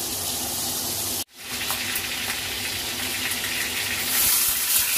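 Hot cooking oil sizzling in a wok, getting louder from about four seconds in as pieces of salmon are laid into it.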